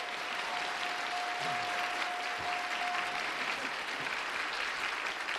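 Studio audience applauding a correct answer. A single steady tone is held under the applause and stops about three seconds in.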